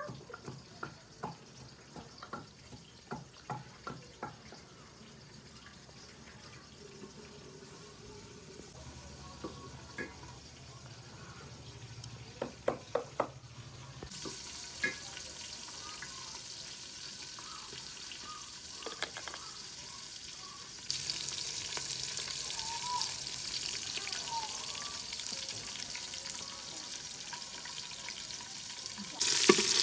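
Wooden pestle pounding in a wooden mortar, about two knocks a second for the first few seconds, then a few scattered clicks. From about halfway a steady sizzling hiss from a steel cooking pot on a wood-fired mud stove takes over, getting louder in steps.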